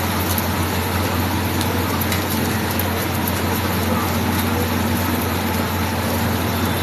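Heavy rain pouring, a steady dense hiss with many small drop ticks, over a constant low hum that sounds like street traffic.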